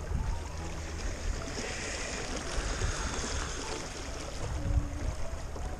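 Water rushing and lapping along the hull of a small boat under way, swelling about a second and a half in, with a low steady rumble underneath.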